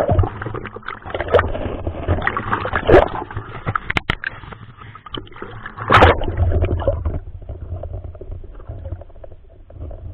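Water sloshing, gurgling and splashing around an underwater action camera as a spearfisher handles a speared pike and breaks the surface, in irregular loud surges, with a few sharp knocks about four seconds in.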